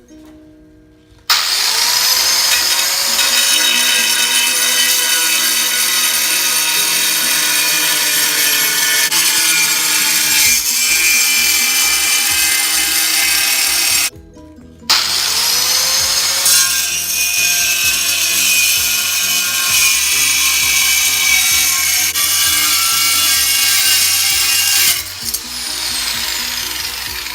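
Angle grinder cutting a tile: the motor spins up with a rising whine about a second in and runs with a loud, high grinding whine through the cut. It stops briefly about halfway, spins up again, and winds down with a falling whine near the end.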